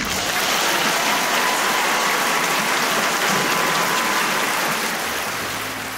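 Audience applauding, a dense steady clapping that starts abruptly and tapers off near the end.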